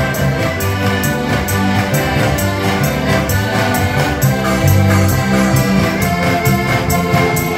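Several heligónky (Slovak diatonic button accordions) playing a lively folk tune live, with guitar accompaniment and a steady beat.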